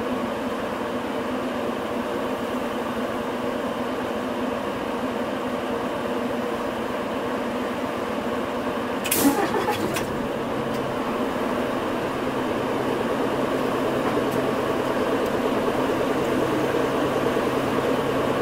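Hino Rainbow non-step bus heard from inside the cabin, its diesel engine running with a steady drone. About halfway through there is a short sharp burst of hiss and clatter, after which the engine gradually grows louder.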